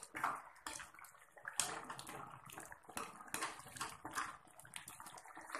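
A ladle stirring a thin, simmering curry of taro and chicken in a kadai, the liquid sloshing with each of a series of irregular strokes.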